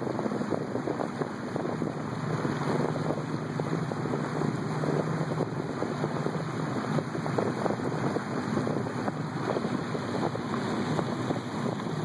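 Boat motor running steadily, with wind buffeting the microphone and water rushing past.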